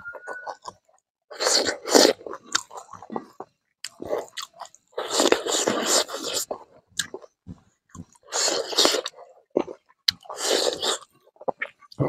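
Close-up chewing of mouthfuls of rice and smoked pork eaten by hand, in four bursts a few seconds apart with small clicks between.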